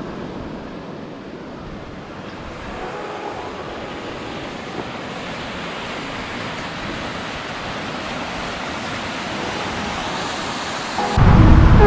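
Mountain river rushing over rocky rapids, a steady noise of running water, with some wind on the microphone. A much louder sound cuts in just before the end.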